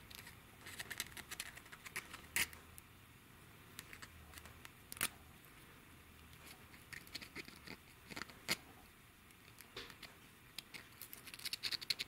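Faint scratching and scattered small ticks of a wire torch tip cleaner being worked in and out of a small brass carburetor jet, clearing the plugged jet, with a few sharper clicks of metal on metal.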